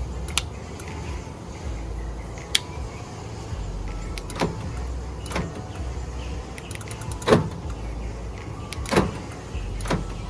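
A car's door locks and alarm relays clicking and clunking about seven times as the newly reinstalled EasyGuard alarm is worked with its key fob, the loudest clunk about seven seconds in.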